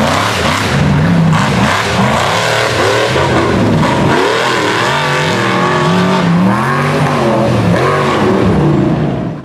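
Rock bouncer buggy engine revving hard, its pitch rising and falling over and over as the throttle is worked, cutting off suddenly at the end.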